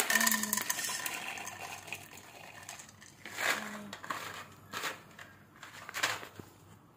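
Pine nuts tipped into a nonstick frying pan of melting butter, clattering against the pan, with a few more short rattles a few seconds later.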